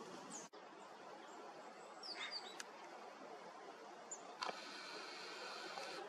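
A few short, high bird chirps with falling pitch over faint outdoor background noise, and a sharp click about four and a half seconds in.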